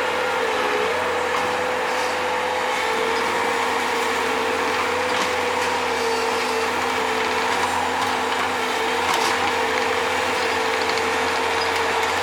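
Bobcat skid-steer loader running steadily while digging out a spring, its engine and hydraulics giving a constant whine and hum, with a few short knocks from the work.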